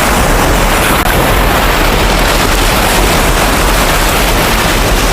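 Loud, steady rushing noise with no distinct sounds in it.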